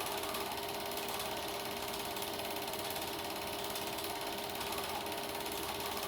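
Super 8 film projector running: a rapid, steady mechanical clatter from the film-advance mechanism, with a steady motor hum under it.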